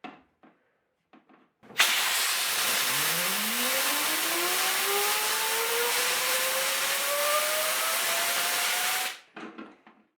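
Compressed air hissing loudly from an air nozzle onto a brass gyroscope rotor, starting about two seconds in, with a whine that rises steadily in pitch as the rotor spins up. The air cuts off suddenly near the end, and a few light clicks and knocks come before and after.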